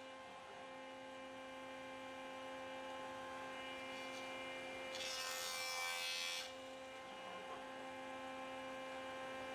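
Jointer running with a faint, steady hum. About five seconds in, a hiss of cutting rises for about a second and a half as the board passes over the cutterhead.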